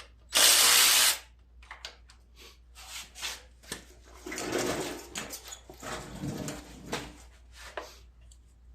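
Hand tools and engine parts being handled during mower reassembly: scattered clicks, knocks and rattles, with a short loud rush of noise lasting under a second near the start.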